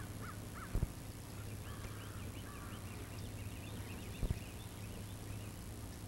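Birds calling across the water in many short, quick chirps, over a steady low hum, with two soft knocks, about a second in and again about four seconds in.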